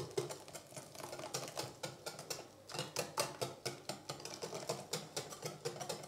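Wire whisk beating thin pancake batter in a glass bowl: rapid, uneven clicking of the tines against the glass, with a short pause about halfway.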